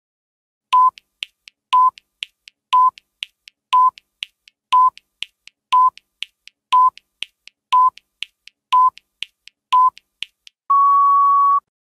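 Quiz countdown timer sound effect: ten short electronic beeps, one a second, with softer ticks between them, then one longer beep near the end as the count runs out.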